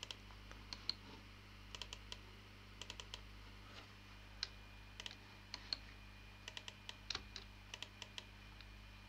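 Faint computer keyboard and mouse clicks, irregular and often in quick clusters of two to four, over a low steady electrical hum.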